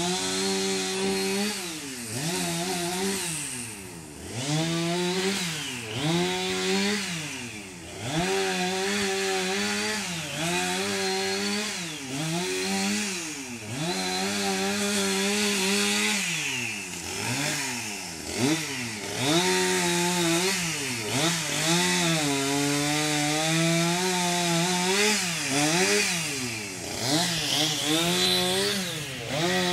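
Two-stroke chainsaw engine running, revving up and falling back over and over, with a few steadier stretches in between.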